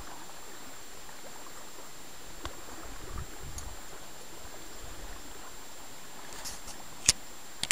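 River water running steadily along a gravel shore, with a sharp click about seven seconds in.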